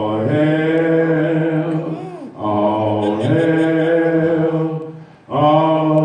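Low male chanting in long, slow held notes, three drawn-out phrases each a couple of seconds long with a short break between them, like the opening of a fraternal chant.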